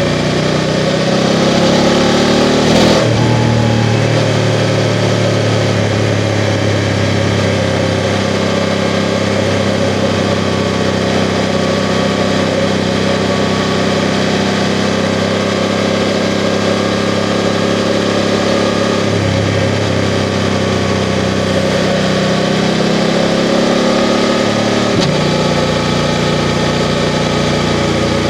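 BMW F 750 GS parallel-twin engine running under way. Its pitch rises over the first few seconds, breaks with a gear change about three seconds in, then holds steady, shifting again about two-thirds of the way through and near the end. A steady rush of wind and road noise runs underneath.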